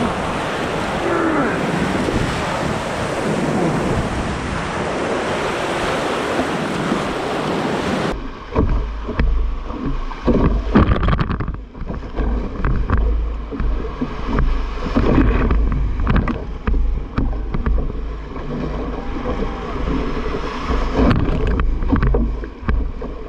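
Whitewater rapids rushing as a canoe runs them, waves breaking and splashing against the hull, with wind buffeting the microphone. About eight seconds in the sound turns choppier, with a heavy low rumble and irregular slaps and splashes of water around the boat and paddle.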